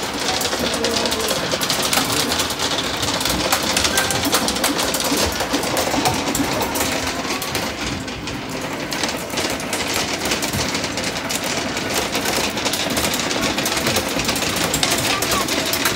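Amusement arcade din: a loud, dense mechanical clatter of machines with rapid clicking.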